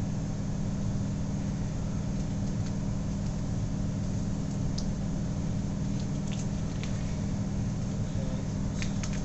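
Steady low background hum, with a few faint ticks in the second half.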